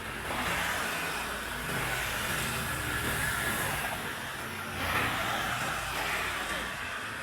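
Motorway traffic passing: vehicles go by one after another, tyre and engine noise swelling and fading, with the loudest pass about five seconds in.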